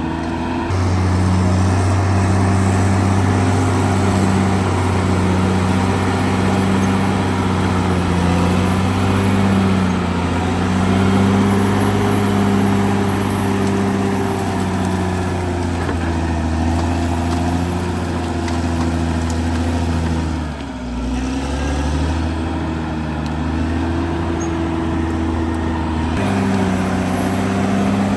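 Caterpillar D6R XL bulldozer's diesel engine running steadily under load. About twenty seconds in, the engine note dips briefly and then picks back up.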